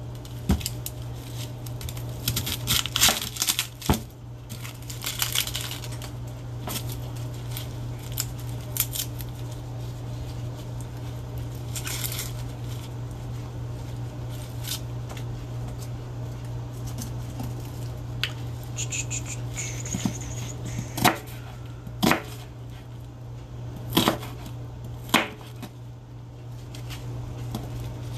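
Onion being trimmed, peeled and sliced with a kitchen knife on a plastic cutting board: rustling and crinkling of the papery onion skin and scattered sharp knocks of the blade on the board, the loudest near the end. A steady low hum runs underneath.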